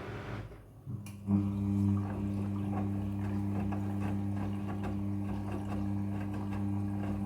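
Front-loading washing machine mid-cycle: after a brief lull and a click about a second in, a steady electric hum starts up and keeps on, with faint irregular swishing and knocking underneath.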